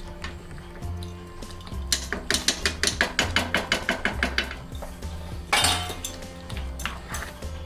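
A spoon clinking rapidly against a cooking pot as the cream is stirred into the gravy, about six or seven knocks a second for a couple of seconds, then a short rasping scrape. Background music with a steady beat plays underneath.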